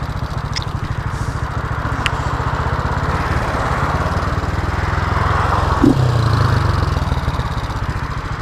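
Honda CG Titan 150's single-cylinder four-stroke engine running under way through an aftermarket Gemoto sport exhaust, a fast, even thrum of firing pulses. Wind rushes over the microphone throughout, and there is a brief low thump about six seconds in.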